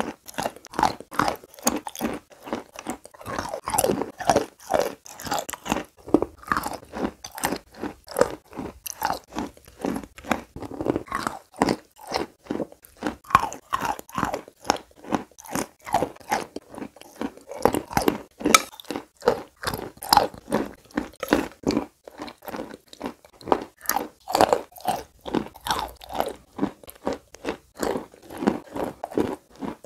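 Close-miked mouth sounds of eating a thick, wet paste off a spoon: continuous sticky chewing with rapid clicks and smacks, several a second.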